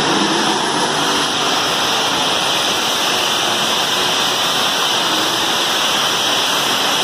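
Turbine-powered ("jet") pulling tractor running under load as it pulls the sled: a loud, steady rushing noise with no distinct engine beat.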